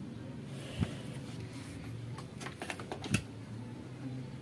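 Light clicks and taps from handling a digital multimeter and its test probes over a circuit board. Two sharper clicks come about a second in and just after three seconds, with a few softer ticks between them.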